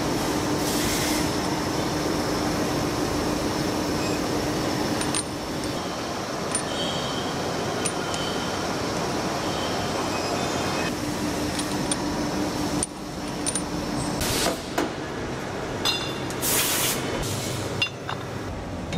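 Steady running noise of machine-shop machinery, with a low hum at first, its character changing abruptly twice. In the last few seconds come a run of light metallic clinks and knocks, as of metal parts knocked together.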